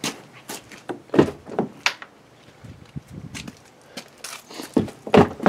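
A handful of irregular knocks and clunks as the camera is carried and handled around the car body, the loudest near the end.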